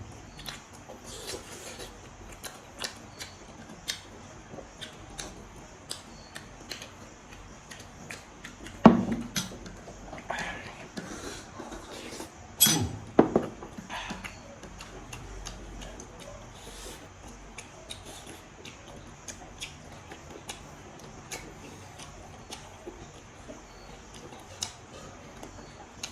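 A person eating pork meat off the bone: many small clicks and smacks of chewing and handling food, with a few louder knocks about nine and thirteen seconds in.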